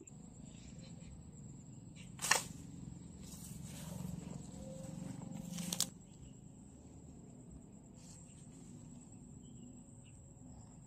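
Rustling handling noise from a mesh insect net being worked in grass, with a sharp click about two seconds in and a longer rustle ending in another click near the middle. A steady high-pitched insect trill runs underneath.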